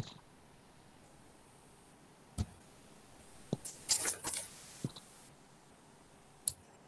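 A few scattered short clicks and taps over quiet room tone, with a small cluster of them about four seconds in.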